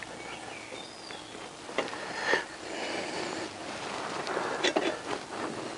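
A few short knocks and scrapes from a 4-into-1 exhaust section being worked into place under a motorcycle against the engine sump, with a cluster of knocks near the end.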